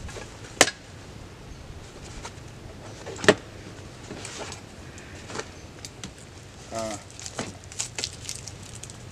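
Kitchen utensils handled out of a canvas bag and set down on a folding table: two sharp knocks, about half a second and three seconds in, among small rustles and clicks. Near the end, the dry papery skin of an onion crackles as it is peeled by hand.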